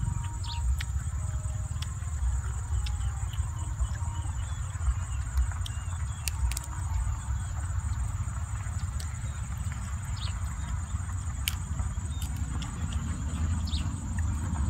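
Low, gusting wind rumble on the microphone under a steady high insect drone, with scattered small clicks and smacks from boiled chicken being torn apart by hand and chewed.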